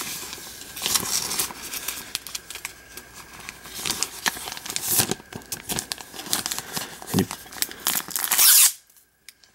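Thin plastic team bag crinkling and rustling with many small crackles as a sleeved card booklet is worked into it. A louder rustle comes near the end, then the sound cuts off.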